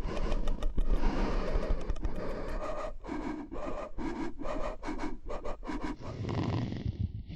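Close-up ASMR scratching and rubbing in quick strokes. Near the end it gives way to a lower, rumbling rub.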